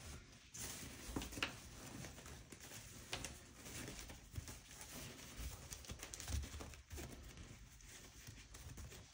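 Soft rustling of cross-stitch fabric being rolled and handled by hand, with a few light taps.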